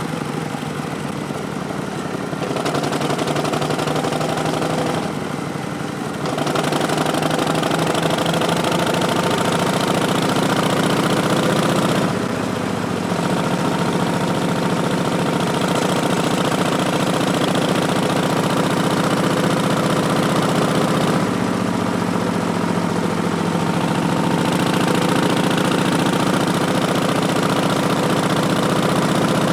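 Harley-Davidson Milwaukee-Eight V-twin on a 2019 Street Bob, breathing through Vance & Hines Twin Slash slip-on mufflers and an Arlen Ness Big Sucker intake, running under way. Its note shifts in steps a few times, with a brief dip about five seconds in and changes at about twelve and twenty-one seconds.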